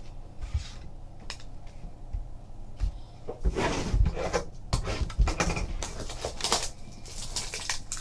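Trading cards and a boxed card set being handled on a tabletop: light knocks and low thumps, with spells of rustling and crinkling from about three and a half seconds in.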